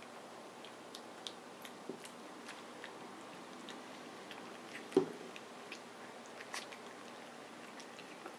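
Wire Fox Terrier puppy lapping and chewing soft food from a hand: small wet smacks and clicks, with one louder knock about halfway through.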